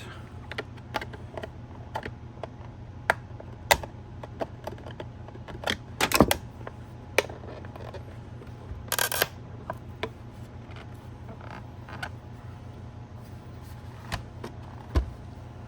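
Plastic clicks and snaps of a car side mirror's cover being worked off its retaining clips: scattered sharp taps, a louder cluster of snaps about six seconds in and a short scraping rasp around nine seconds. A steady low hum runs underneath.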